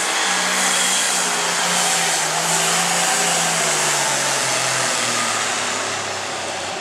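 International Harvester super stock pulling tractor's turbocharged diesel engine running flat out under load with a loud whine. Its pitch falls steadily as the weight of the sled drags it down late in the pull.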